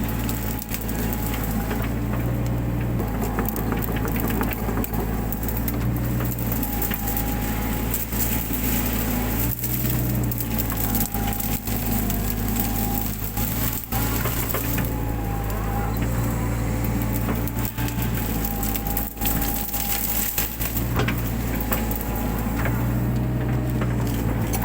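Mini excavator engine running steadily, with a wavering hydraulic whine that rises and falls, while brush and woody stems crackle and snap as they are crushed.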